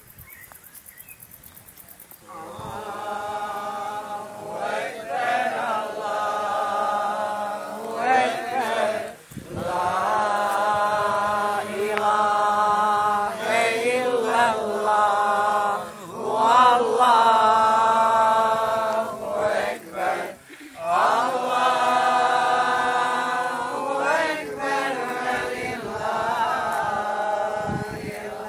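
Mourners' voices chanting a Muslim prayer in long, drawn-out phrases, starting about two seconds in and pausing briefly between phrases.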